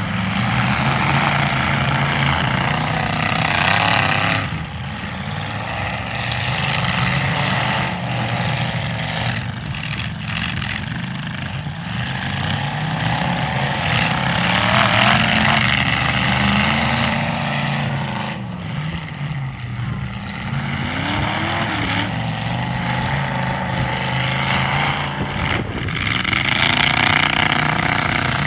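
Demolition derby car engines running and revving, their pitch rising and falling, with louder stretches of noise every several seconds.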